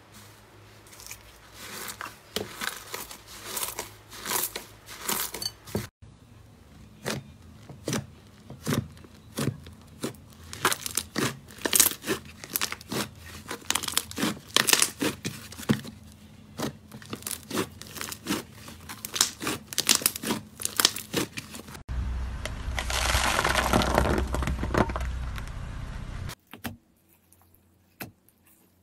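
Slime being worked close to the microphone: a quick irregular run of sticky pops and crackles as foamy slime is stirred and thick white slime is squeezed and pulled. About 22 s in, a dense steady crackling starts and runs for about four seconds, then stops abruptly. After that only a few soft clicks are heard as a hand presses into a textured slime.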